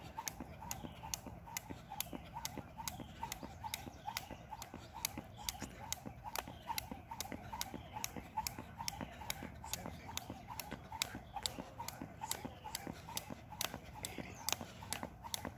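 Jump rope skipping on asphalt: the rope slapping the pavement and sneakers landing in a steady, quick rhythm of sharp ticks, about two or three a second.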